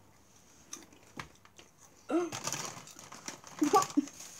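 About two seconds in, a girl starts making short wordless vocal sounds whose pitch swoops up and down, after a near-quiet start with a couple of faint clicks.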